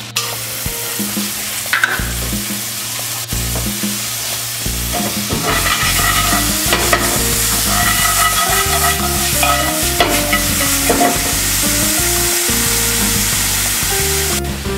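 Mixed seafood (shrimp and shellfish) frying in oil in a black skillet on a gas burner, a steady sizzle that grows louder about five seconds in, with background music over it.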